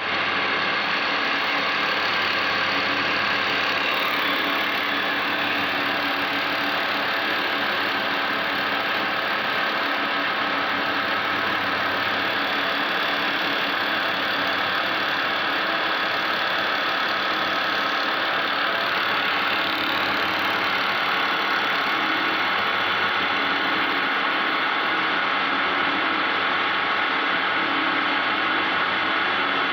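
TS-1200 wood lathe running steadily, its motor and spindle giving an even mechanical hum and whir.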